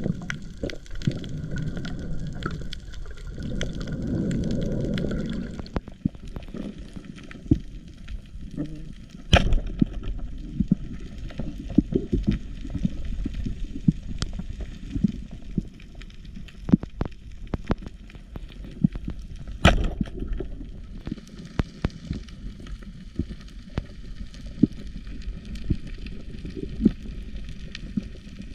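Underwater sound: bubbling for the first few seconds, then a steady crackle of many small clicks, with two sharp knocks about ten seconds apart.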